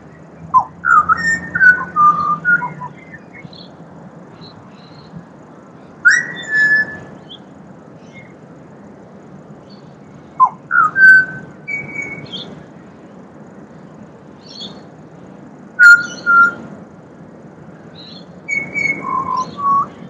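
Pied butcherbird singing: short phrases of clear, fluty whistled notes, some sliding up or down, in five bursts a few seconds apart over a faint steady background hiss.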